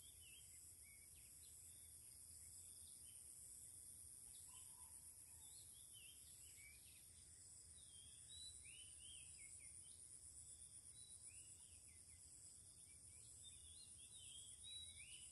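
Faint outdoor evening ambience: a steady high-pitched insect trill, with scattered short bird chirps that come more often about eight seconds in and again near the end.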